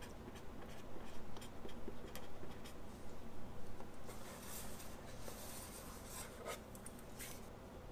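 Felt-tip marker writing on vellum drafting paper in short scratchy strokes. From about four seconds in come longer sliding rubs across the drafting board.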